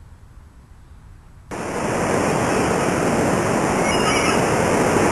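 Loud, steady rushing noise with no tone or rhythm, starting abruptly about a second and a half in.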